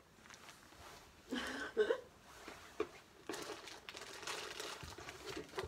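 Faint rustling and crinkling of packaging and small items being handled and rummaged through.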